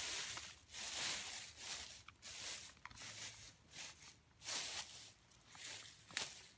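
Fern fronds rustling and swishing as they are grabbed and pulled by hand, in a series of uneven bursts about once or twice a second.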